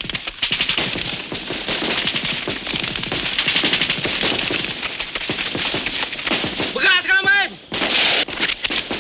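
Heavy gunfire in a night firefight: rapid, continuous automatic fire mixed with rifle shots. Near the end a man cries out briefly over the shooting.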